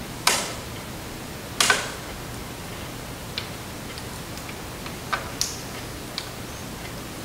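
Screwdriver working a screw on the printer's frame. Two sharper scraping clicks come in the first two seconds, then light scattered ticks.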